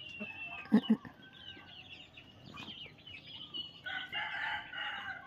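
Ayam kampung (Indonesian village chickens) clucking, with a rooster crowing for about a second near the end.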